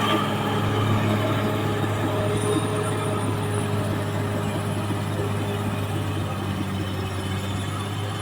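Caterpillar D6R XL bulldozer's diesel engine running at a steady pitch under work.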